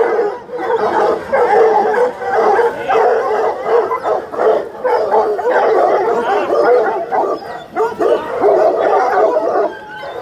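A large pack of hunting hounds crying, yelping and whining all together in a continuous din: the excited, impatient noise of hounds held back on command in front of their food.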